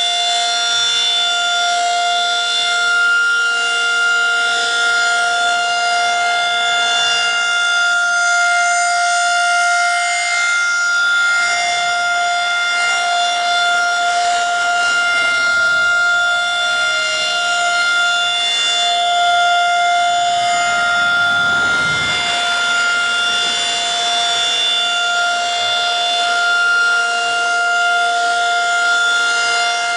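Federal Signal 2001-SRN/DC outdoor warning siren sounding the Alert signal: one loud, steady tone held on a single pitch, with a slight sag in pitch about halfway through.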